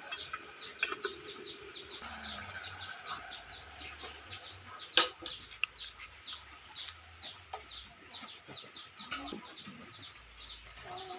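Small birds chirping continuously, a steady run of short falling chirps several times a second. A sharp click about five seconds in, and another near nine seconds.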